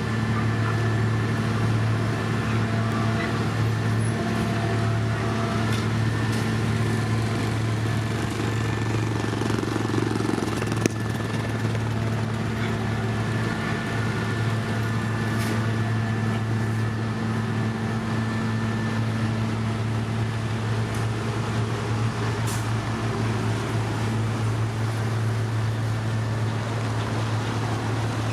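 Diesel engine of heavy road-construction machinery running steadily at a constant speed, a deep even hum with a few fainter higher whining tones above it.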